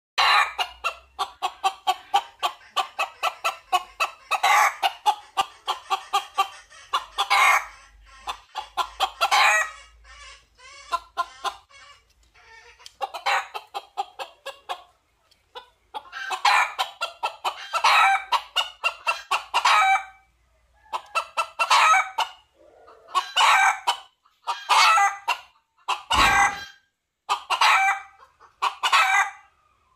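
Red junglefowl rooster calling in quick runs of short clucking notes, bunched and broken by short pauses: a wild cock calling for a hen. A single loud deep thump near the end.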